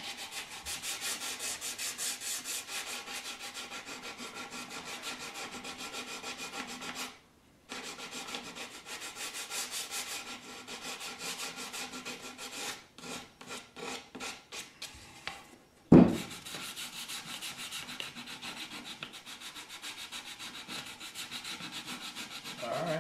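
Sandpaper rubbed by hand over the edges and corners of a knotty pine cabinet door, in quick, even back-and-forth strokes that stop briefly twice, to take off the sharp corners. A single sharp knock comes about two-thirds of the way through.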